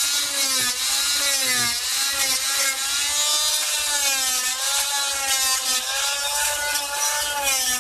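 Corded oscillating multi-tool with a cutting blade running steadily, its pitch wavering up and down as the blade bites into the wood core under a fiberglass deck, cutting out rotted core.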